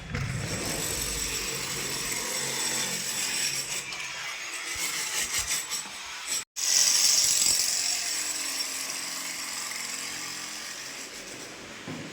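Steady, hissing power-tool noise at a house construction site, with a brief gap about six seconds in, after which it is louder and brighter.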